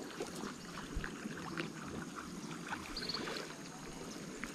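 Water sloshing and splashing around people wading with a fishing net, with scattered small clicks.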